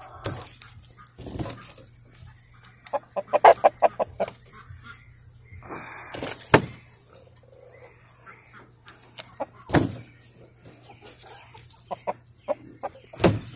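Chickens clucking: a quick run of short clucks a few seconds in, with scattered single clucks after it. A few sharp knocks sound through it.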